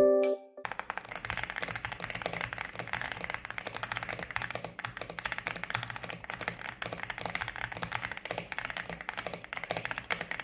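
Fast, continuous typing on an Aula F99 mechanical keyboard: a dense stream of key clacks that starts about half a second in.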